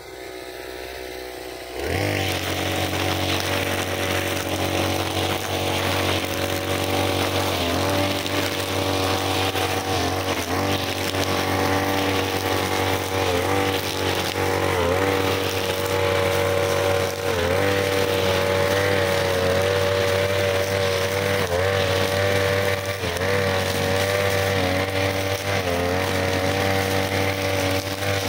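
Backpack brush cutter engine running at high speed, its nylon trimmer line spinning and cutting grass. The sound gets much louder about two seconds in, and the engine pitch dips briefly every second or two.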